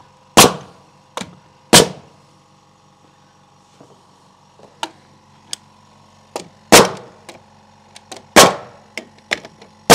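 Pneumatic framing nailer firing nails through pine planks into the wooden beams: sharp loud shots, two in the first two seconds, then a pause, then three more in the last few seconds, with lighter knocks and taps between them.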